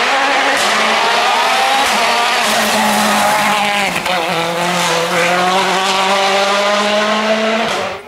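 Citroën DS3 WRC rally car's turbocharged 1.6-litre four-cylinder engine at full throttle, revving up through the gears. The pitch dips briefly about halfway and climbs again, then the sound cuts off suddenly near the end.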